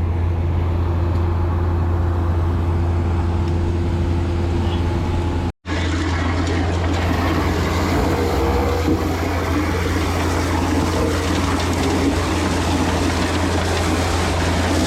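Machinery engine running steadily with a constant low drone and a noisy rumble above it, cutting out for an instant about five and a half seconds in.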